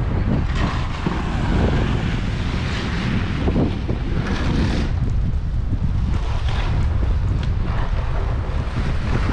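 Wind buffeting the microphone in a steady low rumble, with indistinct outdoor street ambience above it.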